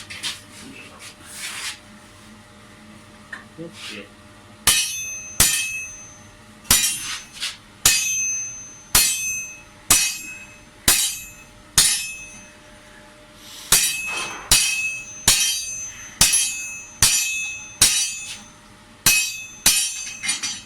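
Blacksmith's hammer striking hot metal on an anvil, about one blow a second with a bright ring after each, as a tool socket is forged into a cone. The blows start a few seconds in and pause briefly about two thirds of the way through.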